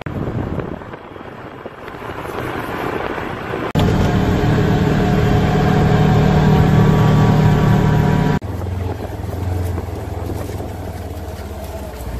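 A vehicle engine idling steadily, with wind on the microphone. Its sound jumps much louder a few seconds in and drops back abruptly after about four and a half seconds.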